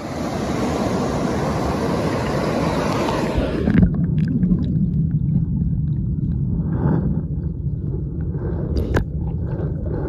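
Mountain stream rapids rushing white over granite boulders, a full hiss of fast water. About four seconds in, the sound is heard from under the water: the hiss drops away to a muffled low rumble with scattered faint clicks.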